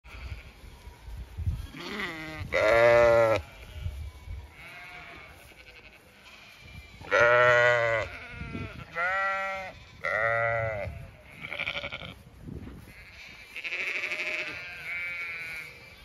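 Zwartbles sheep and lambs bleating, a string of separate calls: several loud bleats in the first ten seconds or so, then a few quieter ones.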